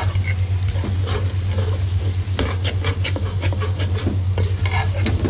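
Long steel spoon scraping and stirring potatoes and radish pods as they dry-fry in an aluminium pot without water, in short repeated scrapes with a light sizzle. A steady low hum runs underneath.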